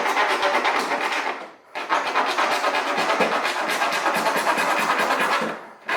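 Hand drywall (sheetrock) saw sawing through plastic trim in quick back-and-forth strokes, pausing briefly about one and a half seconds in and again near the end.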